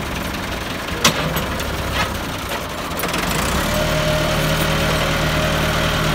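Tractor diesel engine running, with a sharp knock about a second in and a smaller one a second later. A little past halfway the engine gets louder and holds a steady note.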